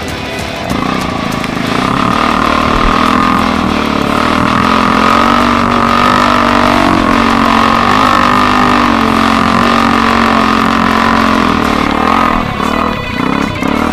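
ATV engine running hard under load on a muddy hill climb, a loud, steady drone whose pitch wavers slightly up and down. It comes in about a second in and drops back briefly a few times near the end.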